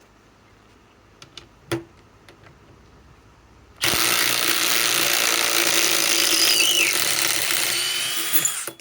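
Cordless impact wrench hammering on a lag screw for about five seconds, starting abruptly about four seconds in. Before that, a few light clicks and one knock.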